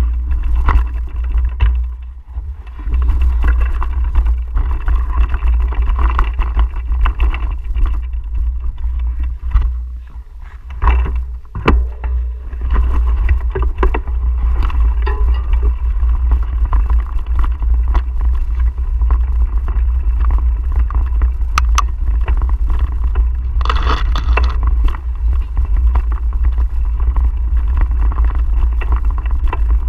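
Wind buffeting the microphone of a camera on a mountain bike riding a dirt trail: a steady low rumble that dips briefly twice, mixed with the bike's rattles and knocks over bumps.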